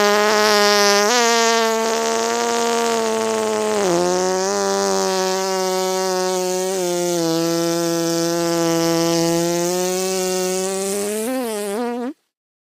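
A steady buzzing sound effect with a low, reedy pitch that dips slightly a couple of times. It lasts about twelve seconds and starts and stops abruptly.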